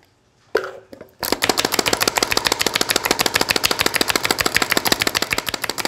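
Hand-operated food chopper chopping garlic cloves: one knock about half a second in, then a rapid, even clicking that starts about a second in and keeps going.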